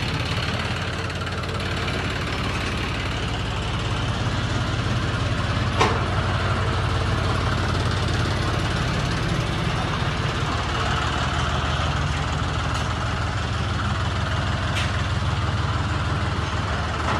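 Tractor engine idling steadily, with a sharp click about six seconds in.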